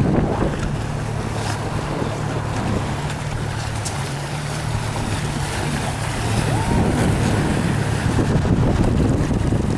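Wind buffeting the microphone and water rushing past a hull, over the steady low hum of a motorboat engine running.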